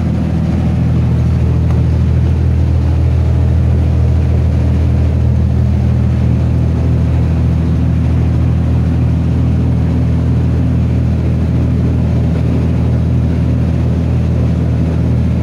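Enclosed lifeboat's diesel inboard engine running steadily in gear ahead during an engine test, heard from inside the canopy. It rises slightly about a second in, then holds steady.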